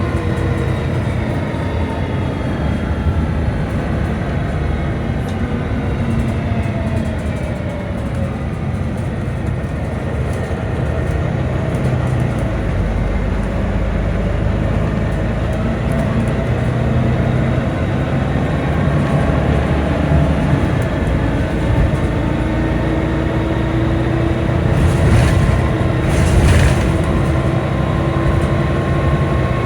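Volvo B9TL double-decker bus running, its drivetrain giving off several whining tones that fall in pitch over the first several seconds as it slows, then a whine that climbs again near the end as it picks up speed. Two short hisses come a few seconds before the end.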